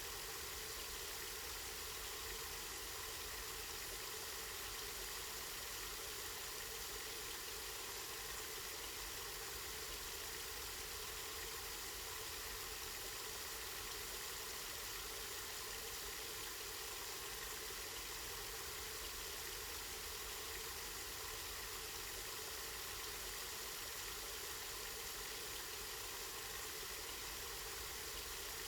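Spring water running steadily, an even continuous rush with a low rumble underneath.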